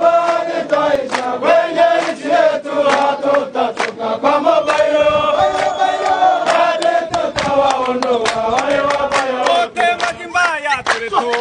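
A group of men chanting a marching song in unison, holding each note before moving to the next, with sharp percussive beats throughout.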